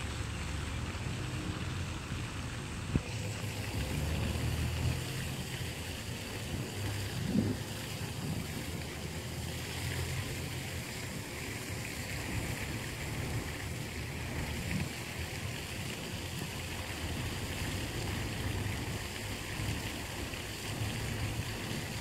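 Steady low outdoor rumble with a faint, even hiss higher up, and a brief knock about three seconds in and again about seven seconds in.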